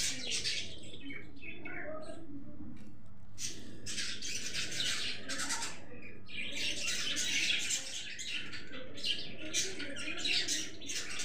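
Budgerigars chattering: a near-continuous run of short, scratchy chirps and squawks, with brief pauses about three and six seconds in.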